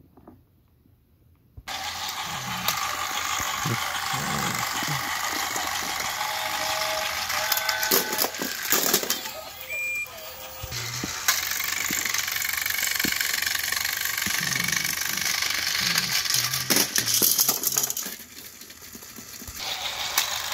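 Motorized Thomas & Friends toy train engines running on plastic track: a steady whirring and rattling of small motors and wheels that starts suddenly about two seconds in and briefly drops away near the end.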